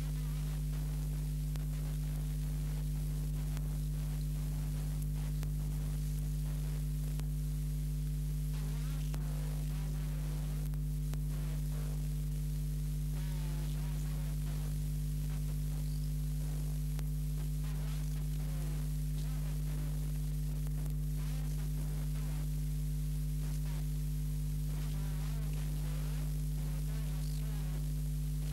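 Steady electrical mains hum with a low buzz and a layer of hiss, without change throughout. It has the sound of a transfer or playback system rather than any scene being filmed.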